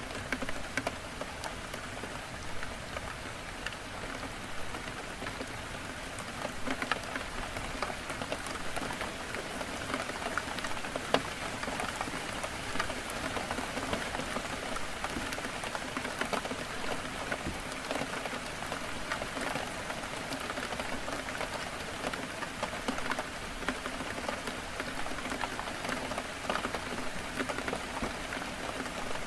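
Heavy rain falling against a window: a steady hiss dotted with the sharp ticks of single drops striking.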